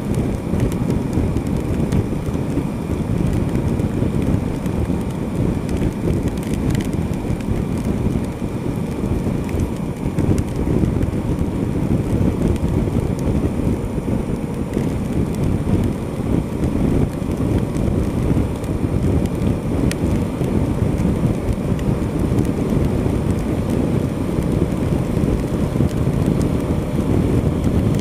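Steady, loud rush of wind and heavy rain on a motorcycle rider's action-camera microphone at highway speed, about 100 km/h, a dense low rumble with no distinct events.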